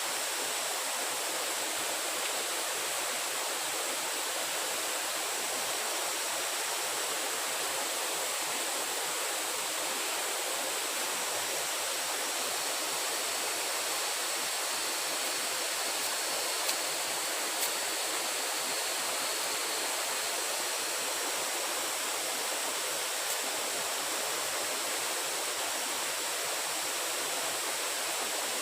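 Steady rushing hiss of running water, with a few sharp clicks a little past halfway.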